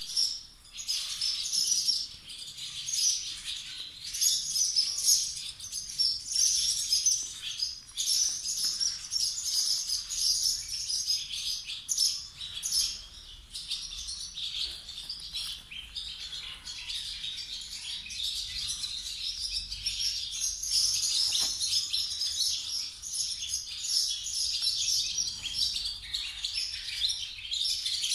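Many small birds chirping and twittering at once, a dense high-pitched chatter that keeps up without a break.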